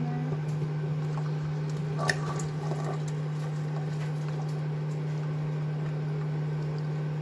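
Hot cooking oil bubbling and sizzling as flour-coated potato sticks are dropped into it by hand, over a steady low hum. There is a short knock about two seconds in.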